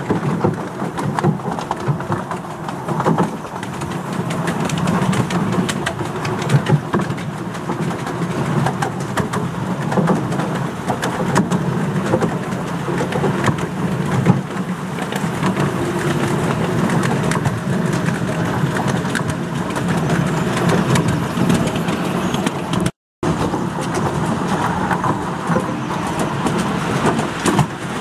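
Ride in an open carriage of a steam-hauled 7¼-inch-gauge miniature train: the steady rumble of the wheels running on the track, with frequent small clicks. The sound cuts out for a moment near the end.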